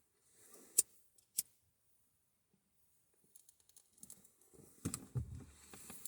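Two sharp clicks a little over half a second apart, then close-up rustling and small knocks of things being handled, with a dull thump near the end.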